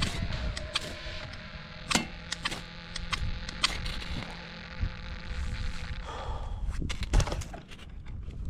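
Ferro rod struck repeatedly with a scraper to throw sparks into a stick stove: about nine short, sharp scrapes at irregular intervals, three in quick succession near the end. They are repeated tries at catching a fire in the freezing cold.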